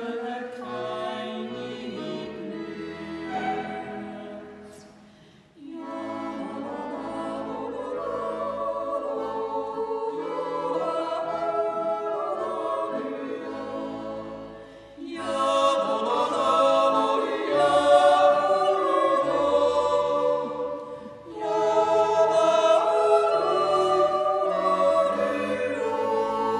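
A mixed yodel quartet singing a Swiss yodel song (Jodellied) in close harmony with accordion accompaniment, in sustained phrases with short breaths between them, swelling loudest about two thirds of the way through.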